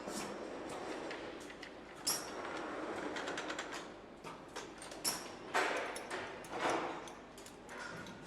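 Workshop sounds of engine hand-assembly: metal parts and tools clicking and knocking, with several louder knocks and short noisy bursts in the second half, over a steady background hum.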